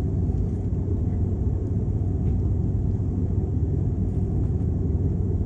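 Steady low rumble inside the cabin of an Airbus A330 airliner taxiing: engine noise and the airframe rolling over the taxiway, heard from a window seat.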